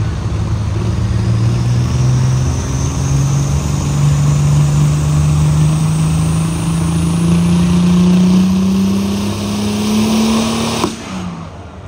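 Turbocharged pulling tractor's engine under full load, its pitch climbing steadily with a high turbo whine rising alongside. Near the end it cuts out abruptly with a sharp crack, the sign of a boost-related failure.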